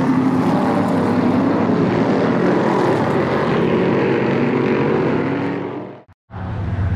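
Modified race car's V8 engine running at speed, heard from trackside, its pitch drifting up and down as the car laps. The engine sound fades out just before six seconds, and after a brief silence a steady low hum starts.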